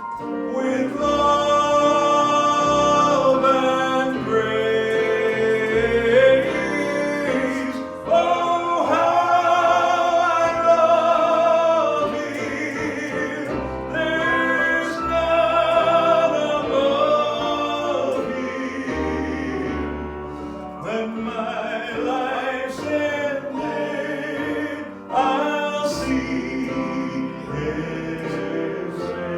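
Live gospel song: voices singing with instrumental accompaniment, with long held, wavering notes.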